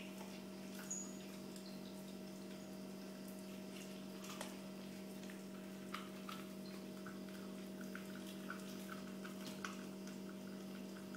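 Shetland sheepdogs chewing and licking a whole raw piglet: faint, scattered wet clicks and smacks of teeth and tongue, over a steady low hum.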